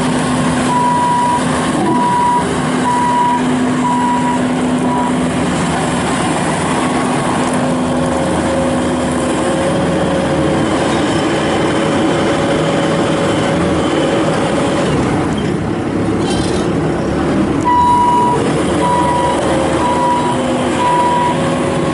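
Bobcat S750 skid steer loader's diesel engine running steadily, with the machine's alarm beeping in two runs of evenly spaced beeps, about five near the start and four near the end.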